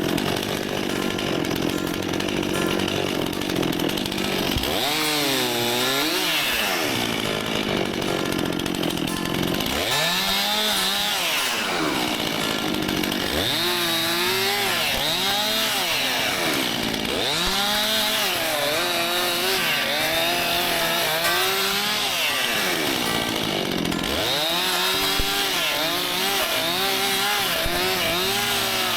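A Stihl MS261 C-M two-stroke chainsaw running. For the first few seconds it holds a steady high rev. From then on it is revved up and let back down over and over, one rise and fall every two to four seconds.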